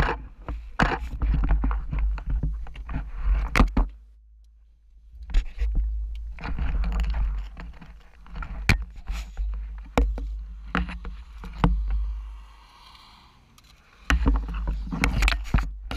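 Wind buffeting the microphone through an open window of a moving car, a heavy low rumble broken by frequent sharp knocks and rattles from handling. It drops away briefly about four seconds in and again shortly before the end.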